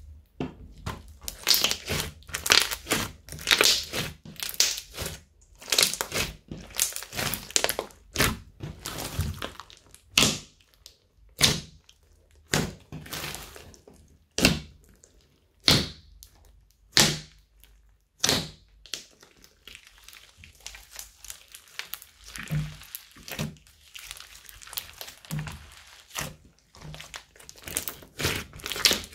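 Hands squeezing, stretching and folding a large batch of glossy slime mixed with foam beads, giving irregular sticky clicks and pops as it is pressed and pulled. The pops are sharper and more spaced out in the first half, then turn into quieter, quicker crackling in the second half.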